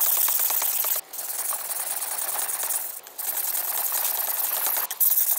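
A large steel gyuto knife blade being rubbed rapidly back and forth on a wet whetstone by hand: a steady scraping rasp of quick strokes, broken by short pauses about a second in, about three seconds in and just before five seconds. The front face is being ground down toward a single bevel.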